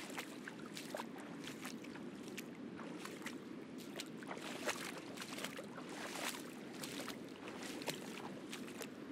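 Footsteps splashing and squelching through shallow water on a wet reef flat, a quick irregular patter of small splashes and clicks over the steady wash of distant surf.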